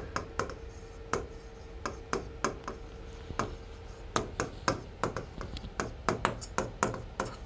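Stylus writing on the glass face of an interactive digital whiteboard: an irregular string of sharp taps and light scrapes, about two or three a second, as each letter is written.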